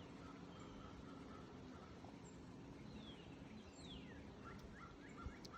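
Faint wild bird calls over a quiet outdoor background: a few falling whistled notes, then a quick series of short chirps near the end.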